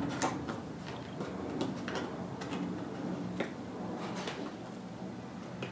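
Scattered light clicks and taps from a large plastic glue canister being handled and its screw cap worked open, over a low steady hum.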